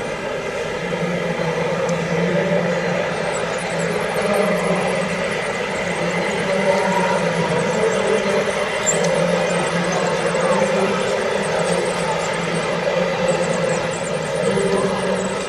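Radio-controlled model construction machines running, a steady motor whine and hum that holds level throughout.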